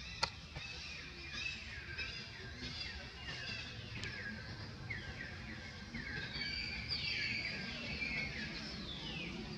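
Small birds chirping, a steady stream of short falling calls overlapping one another. A sharp click sounds just after the start and another about four seconds in.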